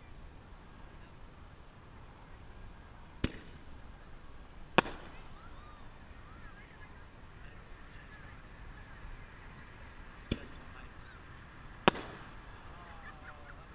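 Two consumer artillery shells, colour-changing chameleon shells, are fired one after the other. Each leaves its mortar tube with a deep thump and then breaks overhead with a louder, sharper bang about a second and a half later. The second shell goes up about seven seconds after the first.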